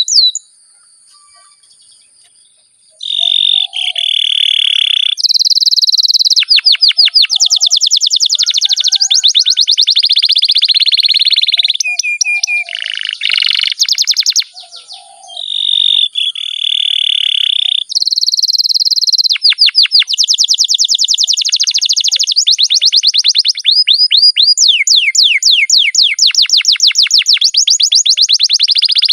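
Domestic canary singing a long rolling song: steady high trills alternating with fast runs of repeated sweeping notes. The song pauses for about two seconds near the start and briefly around the middle.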